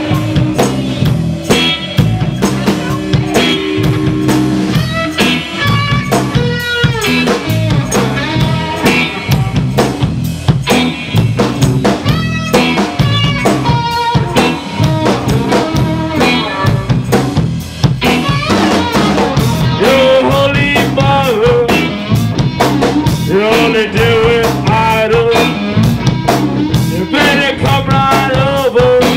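Live punk rock band playing loud: drum kit hits with snare and bass drum, under electric bass and electric guitar.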